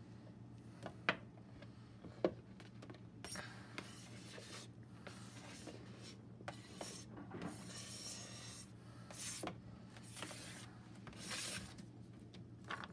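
A utensil scraping and rubbing across a flexible plastic cutting mat in irregular short strokes, pushing chopped pieces into a plastic pressure-cooker pot, with a couple of light sharp taps in the first few seconds.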